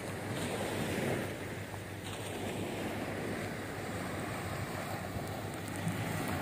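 Small waves washing up onto a sandy shore, with wind rumbling on the microphone.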